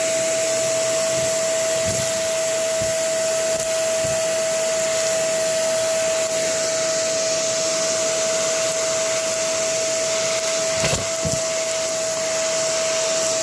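Vacuum cleaner running steadily with a really dirty filter: a constant high motor whine over an even hiss, with a few light knocks.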